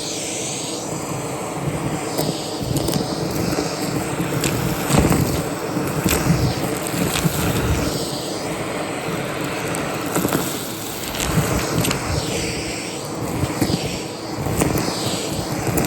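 Vacuum cleaner running with a dusting brush attachment, its airflow hiss swinging up and down in pitch as the brush is moved back and forth, over a steady motor hum, with scattered light clicks.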